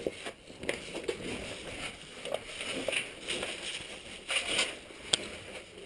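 Irregular scuffing and rustling of a caver's clothing and gear scraping against rock while moving through a tight cave passage, with a few sharp clicks, the sharpest about five seconds in.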